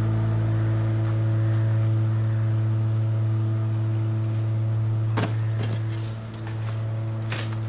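A low, sustained drone of film score held on one note, with a few sharp clicks from about five seconds in and again near the end.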